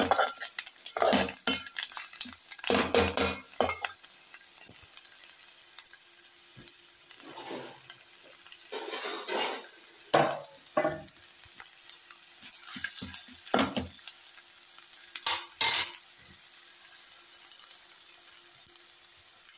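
Steel ladle scraping and knocking against an aluminium pot while amaranth leaves are stir-fried. The stirring comes in irregular bursts of strokes, with pauses, over a steady sizzle of frying.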